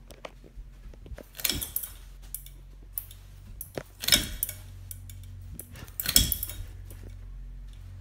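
Encon chili-pepper ceiling fan running with a steady low motor hum, broken by three sharp metallic rattles about two seconds apart.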